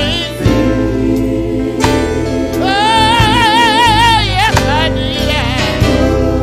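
Live gospel song: a male lead singer over electric bass and drums, holding one long note with vibrato near the middle.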